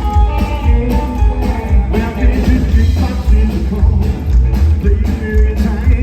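Rockabilly band playing live: twangy electric guitar over a driving upright bass and drums, loud and bass-heavy.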